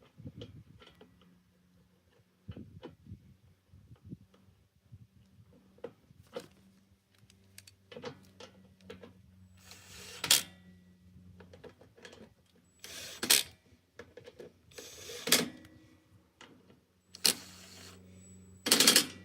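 Scattered clicks, knocks and metallic clatter of hands and tools working on mower parts, with about five louder sharp clacks in the second half.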